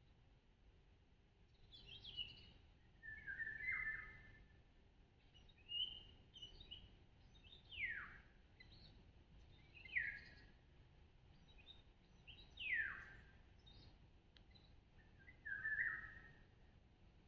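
Wild birds calling: a series of short chirps and downward-slurred whistles, one every two seconds or so, over a faint background hiss.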